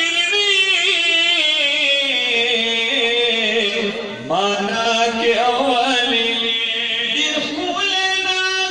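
A single man's voice chanting a Pashto naat, a devotional song in praise of the Prophet, in long, wavering held notes through a microphone. There is a brief breath between phrases about halfway through.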